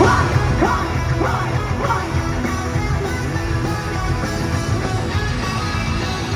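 Live rock band playing an instrumental passage with electric guitar and drums, without vocals. A few quick rising slides sound in the first two seconds.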